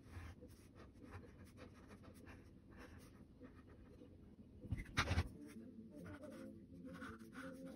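Pen strokes scratching softly across paper as a drawing is inked, with one louder knock about five seconds in.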